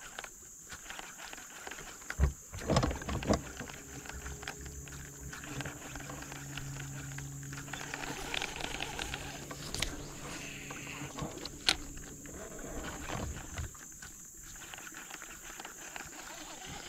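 Knocks and handling noises of an angler working in a fishing boat: a few sharp knocks a couple of seconds in, then a steady low hum for most of the middle, with scattered clicks.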